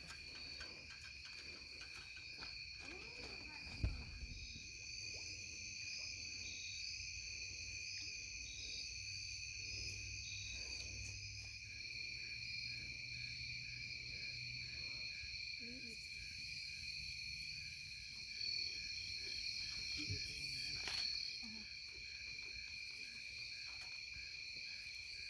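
Night chorus of crickets and frogs: a steady high trilling with rhythmic pulsing calls. A couple of short knocks, about four seconds and about twenty seconds in.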